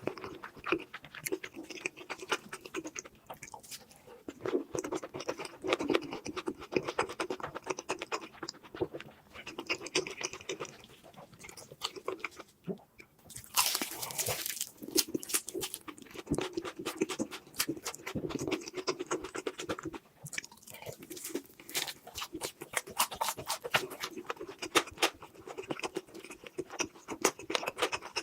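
Close-miked eating sounds: continuous chewing with wet mouth clicks and crunching. About 13 seconds in comes a louder burst of noise lasting about a second.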